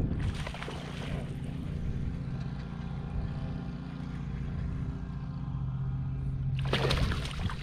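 A hooked largemouth bass splashing at the surface near the end as it is reeled in beside the kayak, over a steady low hum.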